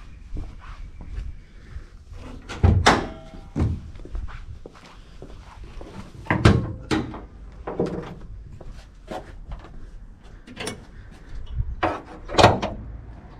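A series of separate knocks and clunks, unevenly spaced, some with a short metallic ring, from handling a car's bare body panels; the last ones come as the bonnet is lifted open.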